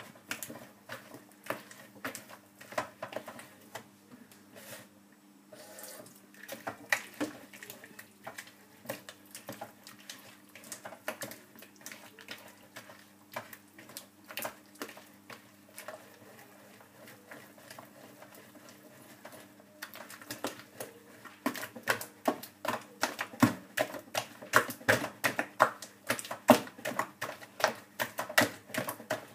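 A hand kneading and slapping wet semolina dough in a bowl: a run of short wet slaps and clicks, which get faster and louder from about twenty seconds in. A faint steady hum sits underneath.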